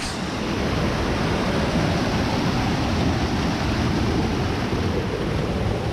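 Rushing water of a cascading river and small waterfall close by: a steady, even rush with no breaks.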